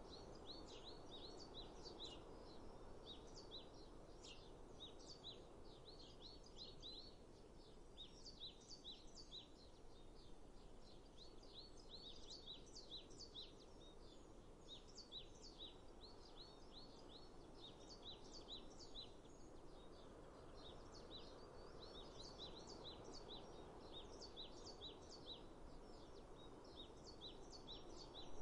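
Small birds chirping faintly in quick runs of short, falling notes that come and go every few seconds, over a soft steady background hiss.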